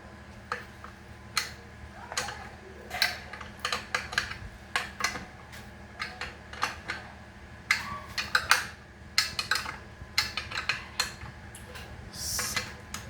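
Irregular metallic clinks, taps and knocks of tools and metal fan parts being handled as a repaired ceiling fan is put back together, with a short scrape near the end.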